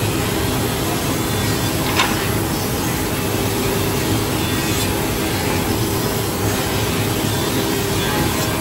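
Woodmaster four-sided moulder and the factory's woodworking machinery running steadily: a constant machine hum under an even hiss, with one sharp click about two seconds in.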